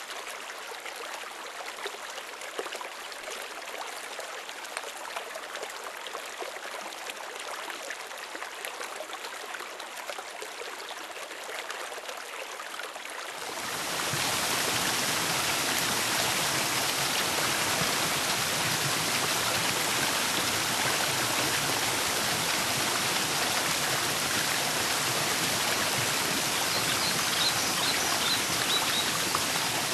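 Stream water rushing steadily over rocks. About halfway through it turns abruptly louder and fuller.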